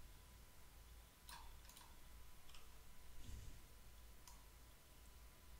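Faint computer mouse clicks over low room hum: about four scattered clicks, two close together a little over a second in, and a soft low thump just past three seconds.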